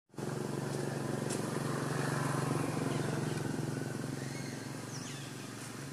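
A motor engine running steadily with a low hum, growing a little louder for the first two seconds or so and then slowly fading, as if passing by. A few short bird chirps come in near the end.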